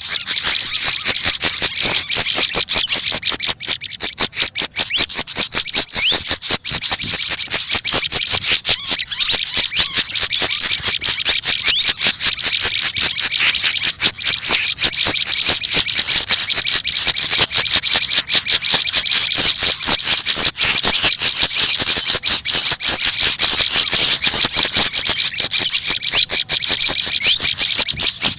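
Songbird calls of sikatan kipas (pied fantail) and prenjak lumut: a fast, unbroken stream of high chips and chirps.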